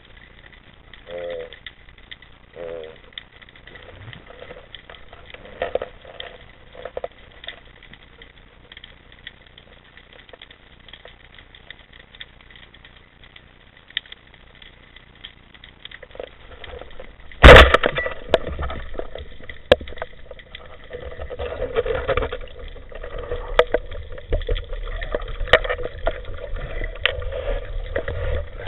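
A speargun fires underwater with one sharp, loud crack about two-thirds of the way through. Rattling and knocking from the spear and its line follow, to the end.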